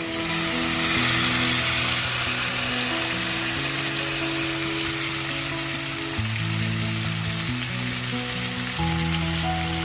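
Chicken pieces sizzling as they go into hot coconut oil with frying onions. The hiss jumps up right at the start as the pieces hit the pan, then settles to a steady fry. Background music with held notes plays underneath.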